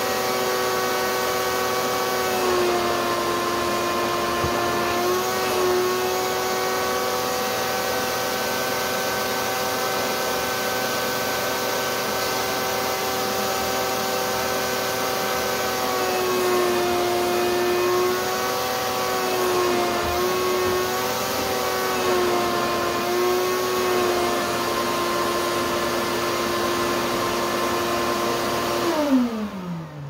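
Wet/dry shop vacuum running with a steady motor whine while its hose nozzle sucks at a chiffon gown skirt. The pitch dips slightly and wavers in places, and near the end the motor is switched off and winds down in a falling whine.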